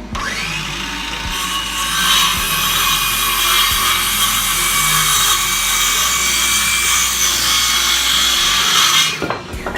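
Woodworking power tool running against wood, a loud steady noise with a faint whine; it stops about nine seconds in.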